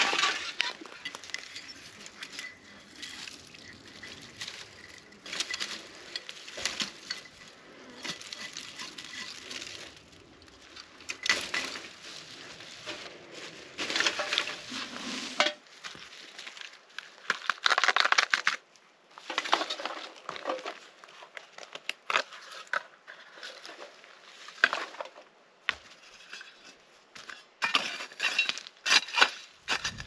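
Litter being handled by hand: a plastic bag rustling and crinkling, with bottles and cans clinking, in irregular bursts. Near the end, a quick run of clacks as rocks are shifted around a fire ring.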